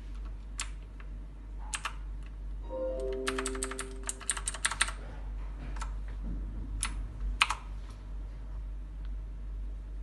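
Keys of a Future RGB Chroma gaming mechanical keyboard being pressed: scattered single keystrokes, then a quick run of typing about three to five seconds in, and a few more presses after. A few short steady tones sound during the run of typing, over a constant low hum.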